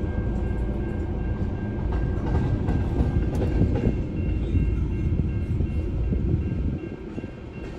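Long Union Pacific double-stack intermodal train rolling past: a steady rumble of steel wheels on rail, with occasional sharp clicks of wheels over rail joints. The rumble dips briefly near the end.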